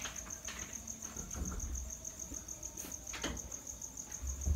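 A cricket chirping in a steady run of rapid, evenly spaced high pulses, with a few brief clicks and soft low thuds from the room.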